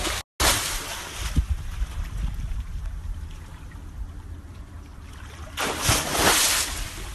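Crocodile thrashing in a shallow pond, splashing water in loud surges at the start and again about six seconds in, with a lower wash of water between.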